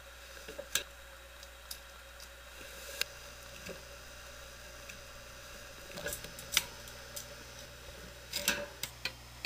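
Scattered sharp clicks and clinks as nuts are undone by hand at the back of a Patton high-velocity fan's motor and the motor is handled against its wire grill. A faint steady hum runs underneath.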